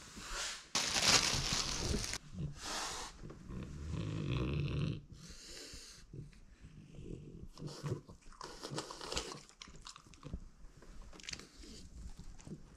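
French bulldog breathing noisily through its short nose in several bursts, the loudest about a second in, with more bursts around the middle and later.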